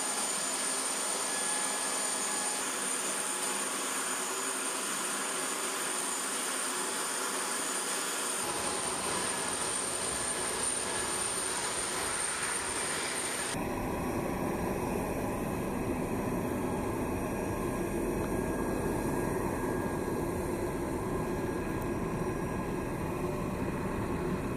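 Steady jet aircraft engine noise: a constant rush with a high, steady whine that cuts out about 13 seconds in, leaving a deeper, even rumble.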